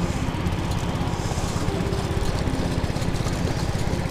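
A small engine running steadily with a rapid, even low chugging.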